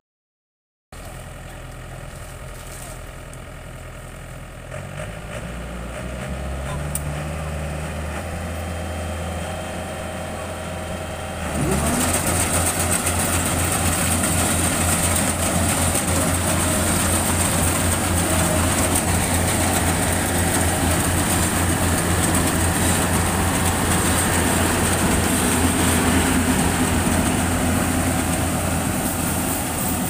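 Yanmar combine rice harvester's diesel engine running, its pitch stepping up over several seconds. About twelve seconds in it gets louder, with a fast even pulsing and a high whine added as the harvester cuts and threshes standing rice.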